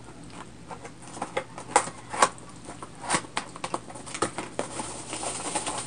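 A cardboard product box being opened by hand: irregular crackling and sharp clicks of the cardboard flap and the plastic wrapping inside, with two louder snaps about two seconds in.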